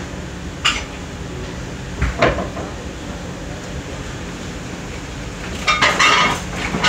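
Steady low kitchen hum, with a sharp knock about a second in and another after two seconds, then a short burst of dish clatter near the end.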